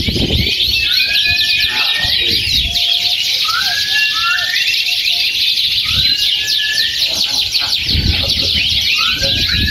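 Many caged songbirds singing at once in a dense, fast chirping chorus. A rising whistled note that levels off repeats every two to three seconds above the chorus.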